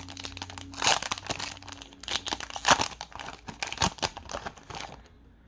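Foil Pokémon booster pack wrapper crinkling and tearing as it is ripped open by hand, a rapid run of crackles that stops about five seconds in.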